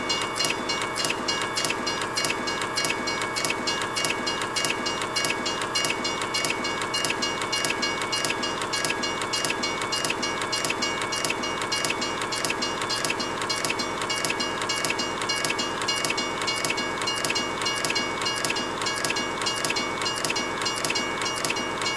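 Train running on rails: a fast, even clatter of wheels over track joints, with steady high tones held over it.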